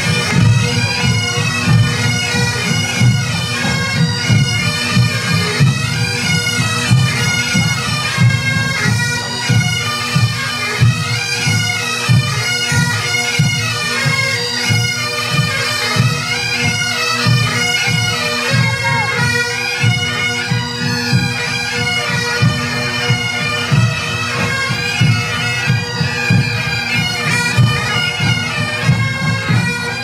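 Massed pipe bands playing a march while on the move: many Highland bagpipes, their steady drones under the chanter melody, backed by bass, tenor and snare drums beating steadily.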